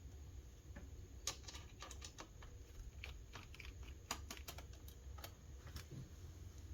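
Faint, scattered small clicks and taps, in a few short clusters, of a small screwdriver working the screws out of a ThinkPad laptop's metal RAM/SSD shield.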